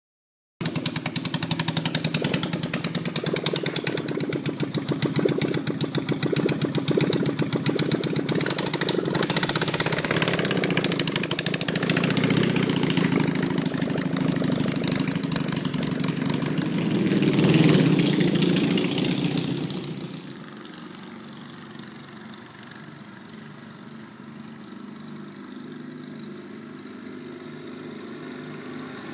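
Yamaha-engined stayer pacing motorcycle running close by, loud and steady, with a brief swell about 17 seconds in. About 20 seconds in it drops abruptly to a much quieter, distant engine hum.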